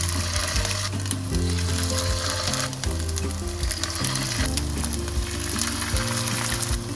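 Food sizzling as it fries in a hot pan, under background music with held notes and a bass line.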